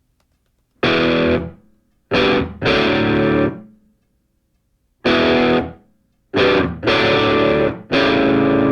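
Background music: distorted electric guitar playing loud chord stabs that start sharply, ring for about half a second to a second and stop, with short silent gaps between them.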